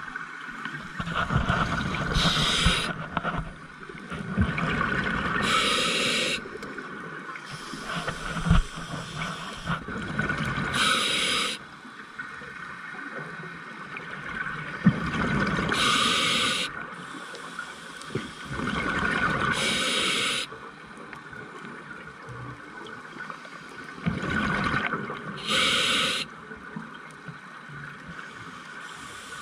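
A scuba diver breathing through a regulator underwater. About six breath cycles, each a short sharp hiss of inhalation alternating with a longer low rumble of exhaled bubbles.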